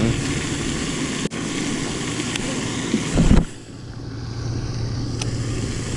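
Wind buffeting the microphone for about three and a half seconds, with a heavy low rumble just before it cuts off abruptly. After that a steady low hum carries on.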